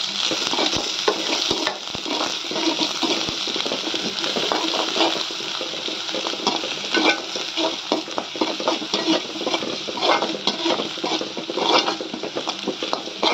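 Sliced onion, spring onion and garlic sizzling in a little hot oil in a metal pan. A spatula stirs them, scraping and tapping against the pan in many quick strokes over the steady sizzle.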